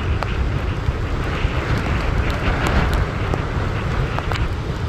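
Strong wind buffeting the microphone: a steady, loud rumbling noise with a few faint ticks.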